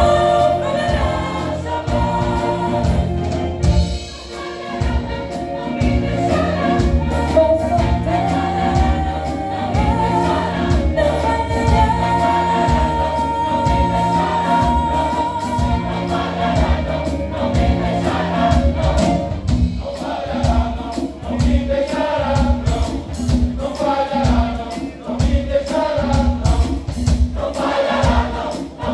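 Choir singing a gospel song over a band with a steady beat.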